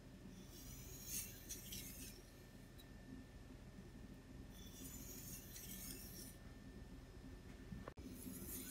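Japanese knife blade drawn along a whetstone in two long sharpening strokes, each about a second and a half, a few seconds apart; each stroke takes the whole length of the edge in one pass.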